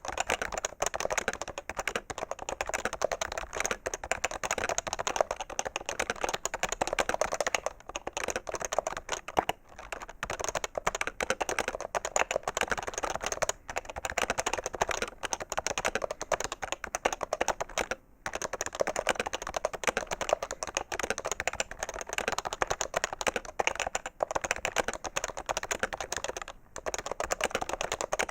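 HHKB Professional 2 keyboard with Topre electrostatic capacitive switches, typed on fast and continuously, its keystrokes running together with a few brief pauses.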